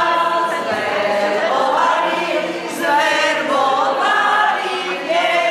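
A room full of people singing a song together in chorus, many voices at once with long held notes.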